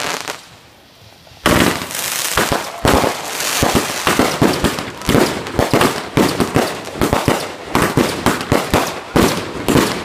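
Consumer ground fireworks going off: after a short lull, a dense run of rapid sharp cracks and pops begins about a second and a half in and continues, several bangs a second.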